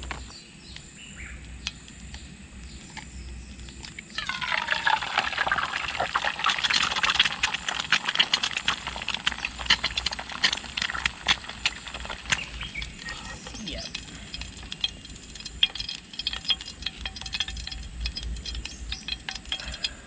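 An egg dropped into hot cooking oil in a small frying pan on a portable gas stove, bursting into a loud sizzle about four seconds in. The sizzle settles after several seconds into a quieter hiss with steady crackling and spitting as the egg fries.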